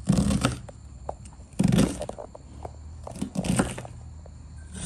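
Kitchen knife chopping an onion on a bamboo cutting board: three heavier chops about a second and a half apart, each a crunching knock on the wood, with lighter taps in between.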